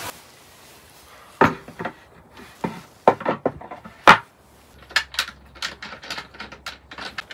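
Wooden knocks and clatter from a Herner Craft Rikka 300 wooden folding table being lifted out of its padded bag and set down, the loudest knock about four seconds in. Near the end comes a quick run of smaller clicks and taps as its legs are folded out.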